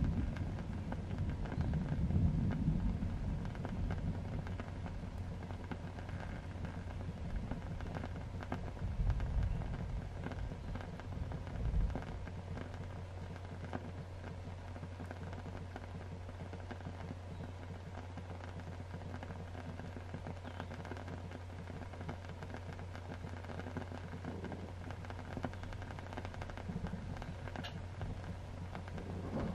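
Thunderstorm ambience: steady rain with low rolls of thunder in the first dozen seconds or so, then rain alone over a faint low hum.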